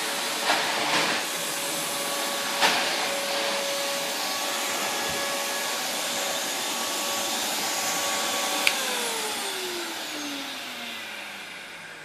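Numatic Henry HVR200 vacuum cleaner running steadily, with a few knocks in the first three seconds. A click comes about three-quarters of the way through as it is switched off, and the motor winds down with a falling whine.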